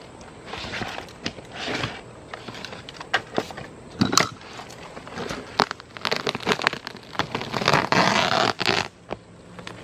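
Old RV roofing, a rubber membrane with thin plywood stuck to it, being torn and peeled up by hand: a series of crackling, tearing and scraping bursts, with one sharp snap about four seconds in and a longer stretch of tearing near the end.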